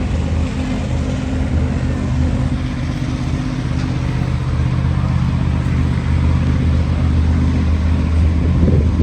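An engine running at a steady idle, a low even drone that holds level throughout.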